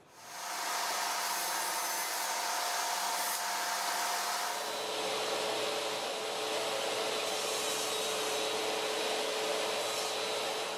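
Small table saw switched on: the motor and blade come up to speed within half a second and run steadily with a whine, whose pitch drops to a lower steady note about four and a half seconds in.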